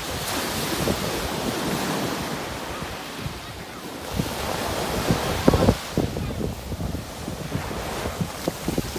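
Ocean surf breaking and washing up a sandy beach, a steady rush that swells and eases, with wind buffeting the microphone in low thumps.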